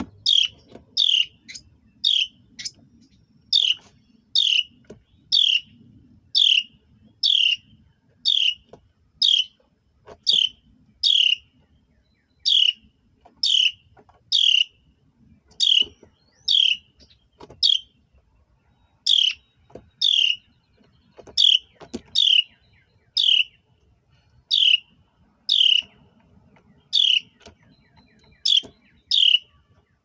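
Carolina wren calls at the nest: a steady series of short, high, downward-slurred chips, about one a second, with a few brief pauses.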